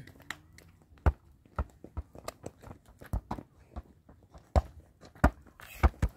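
Irregular sharp knocks and clicks, a dozen or more, with a short pause about four seconds in.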